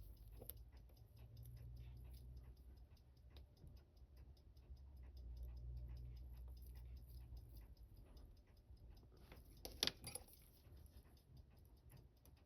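Faint, fast and even ticking of the Seiko 6119 automatic watch movement, with a sharper click about ten seconds in and a low steady hum underneath.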